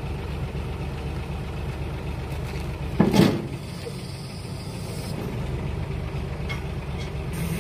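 Heavy diesel engine idling steadily, with one short, loud burst of noise about three seconds in.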